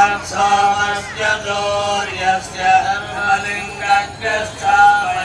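Male voice chanting a Sanskrit mantra to Shiva in a sung, drawn-out melody, phrase after phrase, with a steady drone note under it for the first half.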